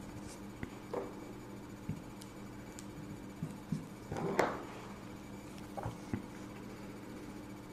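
Faint small clicks and light scratchy handling sounds of a fine paintbrush working acrylic paint on a plastic false nail tip, held in the fingers. The strongest comes about four seconds in, over a steady low hum.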